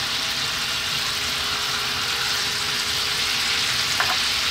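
Lemon butter sauce sizzling and bubbling steadily in a hot frying pan as a second salmon steak is laid back into it.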